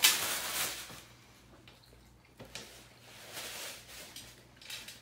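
Tissue paper and wrapping crinkling and rustling as a parcel is unpacked by hand: one loud rustle at the start, then a few softer, shorter rustles.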